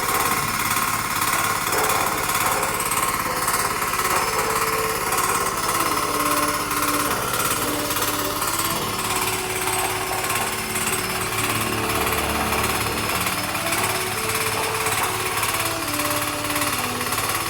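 Two-bagger concrete mixer running: a loud, fast, steady mechanical rattle.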